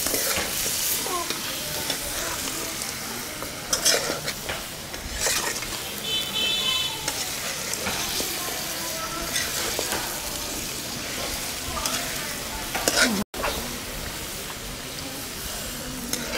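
Duck pieces in spice paste and oil sizzling in a kadai while a metal spatula stirs and scrapes them, with a few sharper scrapes against the pot.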